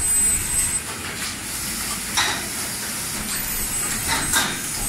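Automatic towel sewing machines running in a workshop: a steady mechanical din, with short hisses about two seconds in and again near the end.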